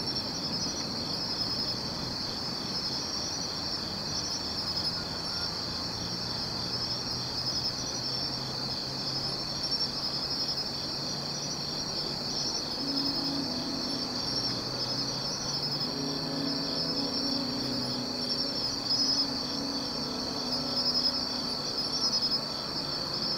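Crickets chirping in a steady, high-pitched night chorus. A faint low hum of distant sound comes in about halfway through.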